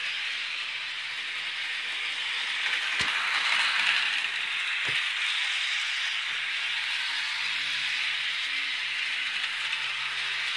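HO-scale Union Pacific GP30 model diesel locomotive running at full speed around the track: a steady whirring rattle of its motor and wheels on the rails that swells a few seconds in, with a couple of sharp clicks.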